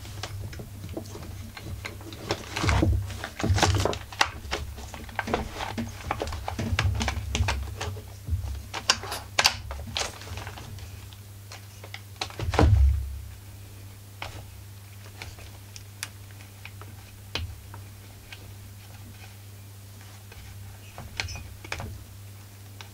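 Plastic recoil starter housing of a Husqvarna 44 chainsaw being handled and pressed into place on the engine: a run of clicks, knocks and rattles with a few heavier thumps, busiest in the first half, then sparse light clicks.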